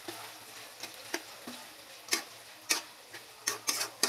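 Sliced onions sizzling in hot oil in a karahi as a metal spatula stirs them, knocking and scraping against the pan in irregular sharp clicks.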